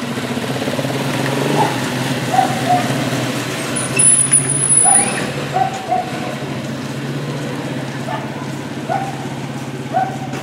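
A steady engine hum, with short higher-pitched tones repeating irregularly over it.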